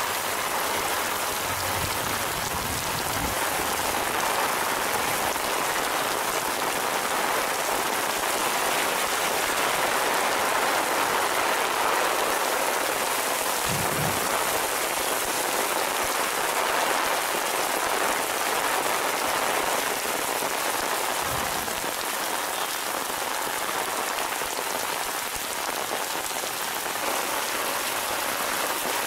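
Heavy rain pouring onto a paved road: a steady, dense hiss.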